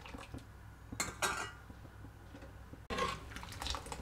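Metal ladle scooping thin lentil dal and pouring it back into a metal pot, with the ladle clinking on the pot and the liquid splashing, in two bouts: about a second in and just before three seconds in. The dal is being beaten this way as it heats on a full flame.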